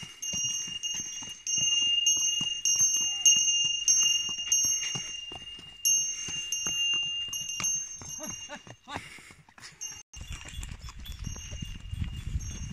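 A horse walking on a dirt track, its hooves clopping in an uneven rhythm, with a steady high ringing over the first seven seconds or so. A low rumble comes in about ten seconds in.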